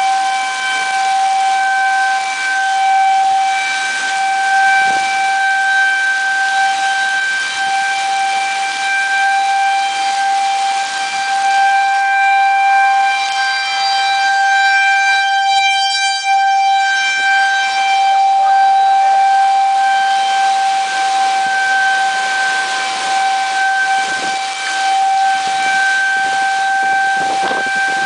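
Outdoor tornado warning sirens sounding a steady, held tone that stays level in pitch.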